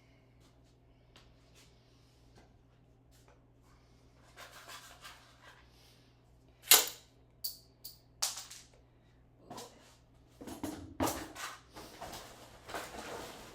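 Ramset powder-actuated nail gun firing once, a single sharp shot about two-thirds of the way in. Several smaller clicks and knocks follow, with clattering handling noise near the end.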